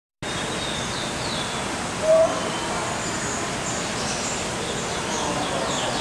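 Aviary birds chirping and twittering over a steady hiss, with one short, louder call about two seconds in.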